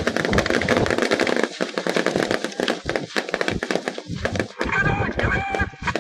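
Rapid, overlapping rifle and machine-gun fire from a dismounted infantry platoon: a dense stream of sharp cracks that thins out near the end.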